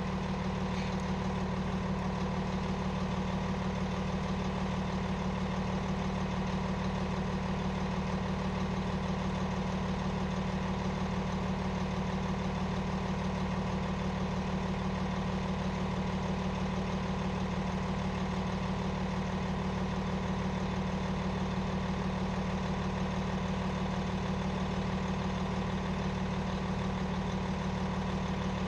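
An engine idling steadily: a constant hum with a strong low tone and higher overtones that does not change.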